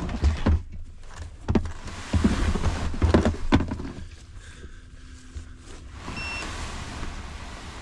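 Several clunks and knocks over a heavy low rumble of handling or wind on the microphone, easing off after about four seconds. A short, high beep follows about six seconds in.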